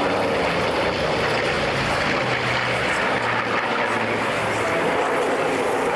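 Twin piston engines of a de Havilland Mosquito droning steadily as it banks through a display pass overhead.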